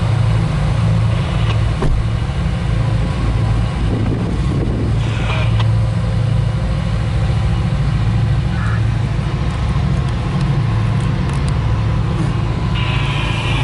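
Norfolk Southern diesel locomotives' engines running as the units roll past, a loud low pulsing drone.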